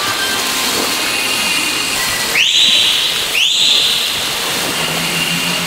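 Two loud, high whistle blasts about a second apart, each sweeping up at the start and then held briefly. Behind them is the steady wash of a swimmer splashing and the noise of an indoor pool hall.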